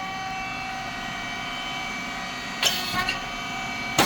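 Puffed rice cake machine (SYP5804T) running, with a steady machine hum of several tones. About two-thirds of the way in there is a sharp hissing pop, with a smaller one just after, and another near the end, as the heated moulds open and release puffed rice chips.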